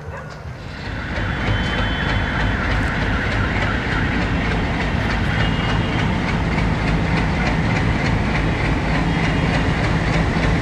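PeruRail Andean Explorer train running on the rails, a steady rumble that swells about a second in, with a regular clicking of the wheels over the rail joints.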